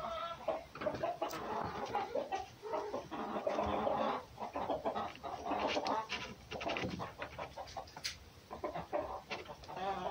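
Red fox giving a rapid, broken chatter of short calls during play with a cat.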